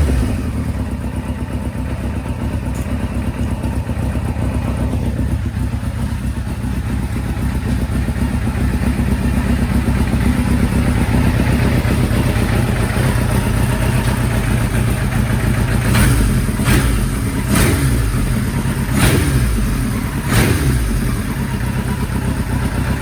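Kawasaki Z1's air-cooled inline-four engine idling steadily. In the second half it is blipped five times in quick succession, the revs rising and falling back each time.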